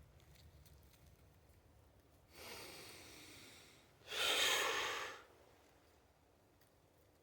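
A person breathing heavily close to the microphone: one long breath, then a second, louder and shorter one.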